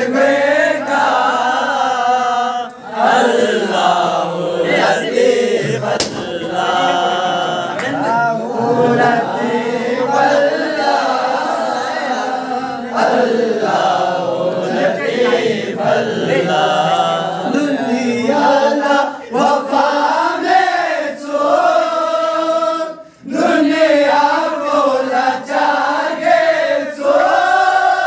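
A group of men chanting together in unison, their voices held in long, rising and falling melodic lines, with brief pauses a few seconds in and again near the end.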